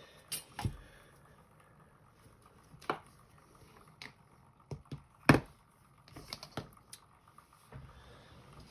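Small hand tools and lock parts being picked up and set down on a work surface: scattered light clicks and taps, one sharper knock about five seconds in.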